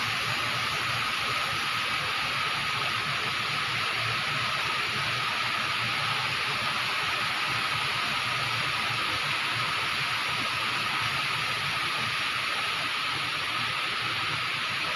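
Heavy storm downpour with strong wind, a steady rushing hiss that does not let up.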